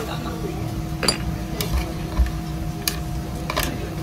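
Metal tongs picking ice cubes out of a stainless steel ice bucket: several sharp clinks of ice against metal, spread out over a steady low hum.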